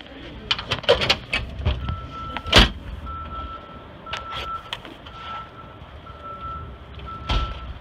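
A vehicle's reversing alarm beeping about once a second, steady single-pitch beeps starting about two seconds in, over a low engine rumble. Several clicks and a sharp knock come just before the beeping starts.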